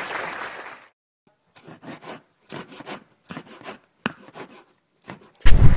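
Kitchen knife slicing red onion on a wooden cutting board: a run of short, soft cutting taps and scrapes, about eight or nine strokes, starting about a second and a half in. A hissing noise fades out during the first second.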